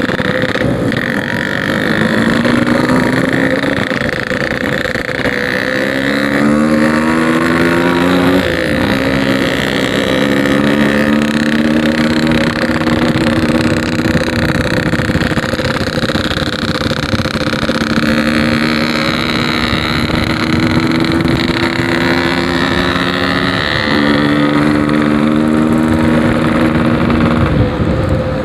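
Yamaha RX-King 135cc two-stroke engine with a packing-power aftermarket exhaust, under way on the road. The engine note climbs, drops sharply at a gear change about a third of the way in, then runs and rises slowly before dropping again at another shift near the end.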